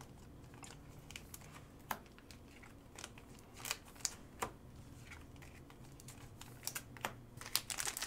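A stack of Panini Mosaic football cards being flipped through and squared up by hand: light, scattered clicks and snaps of card edges, with a few sharper ones about two, four and seven seconds in.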